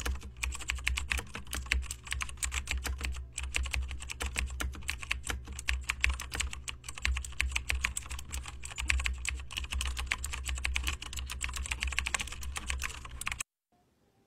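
Fast, continuous typing on a smartphone, its keypress clicks coming many to the second over a low steady hum; it stops abruptly near the end.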